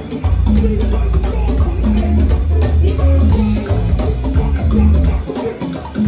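Live band playing a groove, with drums and a heavy bass line, plus keyboard and electric guitar. The bass drops back about five seconds in.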